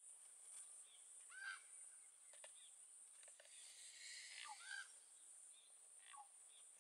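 Faint outdoor ambience: a bird calls three times with short arching chirps, over a steady high hiss.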